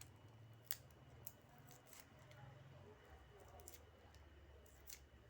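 Faint, sparse snips of scissors cutting an ingredient into small pieces, a handful of sharp clicks a second or so apart, over a faint low hum.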